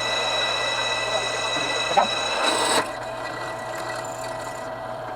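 Drill press running with a drill bit cutting into a thick steel brake rotor: a steady mechanical whine over a scraping hiss, with a short click about two seconds in. The sound drops in loudness a little under three seconds in, as the cutting eases off.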